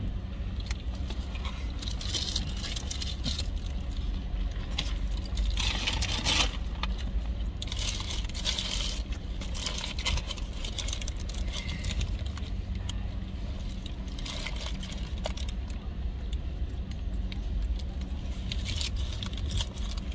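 Paper sandwich wrappers rustling and crinkling in short bursts, with chewing, over a steady low hum in a car cabin.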